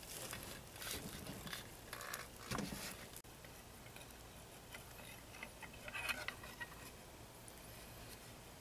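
Faint small clicks and light scraping of metal parts being handled as the water pump plate is worked up the driveshaft of an outboard's lower unit, clearest about a second in, around two and a half seconds in and around six seconds in.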